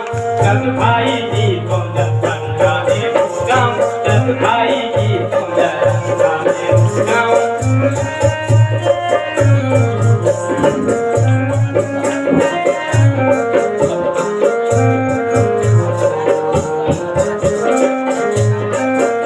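Instrumental music: a melody of held notes stepping up and down over a fast, even ticking rhythm and a low repeating beat.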